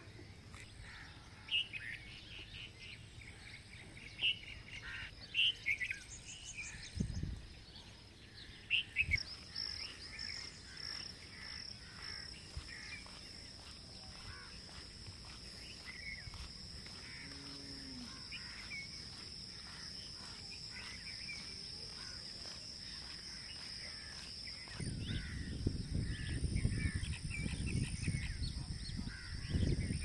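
Birds chirping and calling, with several loud short calls in the first ten seconds. A steady high-pitched tone joins at about nine seconds, and a low rumble comes in near the end.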